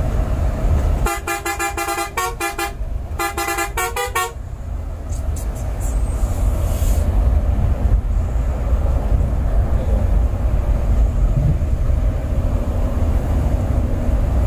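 Multi-tone vehicle horn honking in two quick runs of short blasts, starting about a second in and again around three seconds, over the steady low rumble of a Scania bus's engine and road noise.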